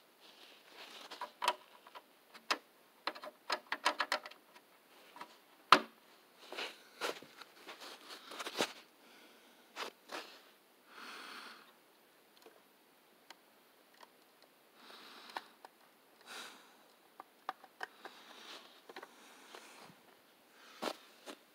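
Small plastic clicks and taps from toy trucks being handled close to the microphone, with a quick run of clicks about four seconds in and a few short soft rustles later.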